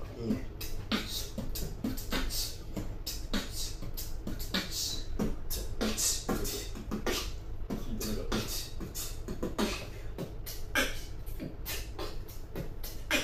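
Beatboxing: vocal percussion in a fast, continuous run of sharp mouth-made kick, snare and hissing hi-hat hits.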